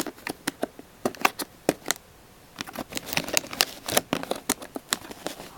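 Plastic packaging clicking and crackling in quick irregular snaps as the tape holding headphones in their tray is picked at and pulled free, with a short lull about two seconds in.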